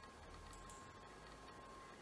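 Near silence: faint room tone with a thin, steady hum.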